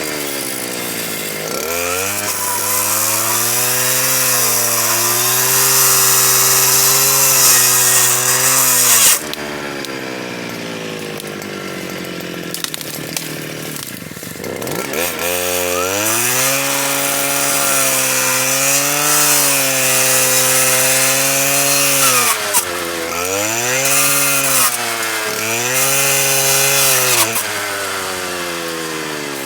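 STIHL KA 120 R engine driving a circular saw blade fitted with chainsaw teeth, running at high revs with a rasping hiss as it cuts. It drops back to a lower speed about nine seconds in and revs up again around sixteen seconds. Near the end the revs dip and recover several times.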